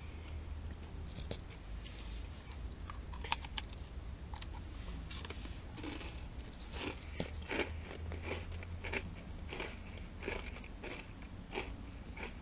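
Close-up chewing of a crunchy ginger nut biscuit: a run of crisp crunches and crackles that gets busier from about six seconds in, over a low steady hum.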